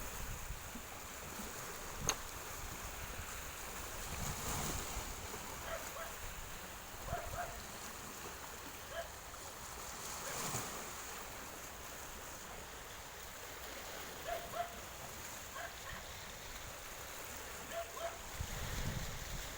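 Wind on the microphone over the steady wash of sea water. There is a sharp click about two seconds in, and faint short squeaks come now and then.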